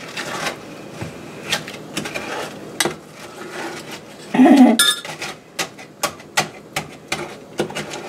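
A wooden spoon stirring a liquid mixture in an enamelled saucepan, knocking and scraping against the pan's sides and bottom in irregular clicks. There is a louder clatter about four and a half seconds in.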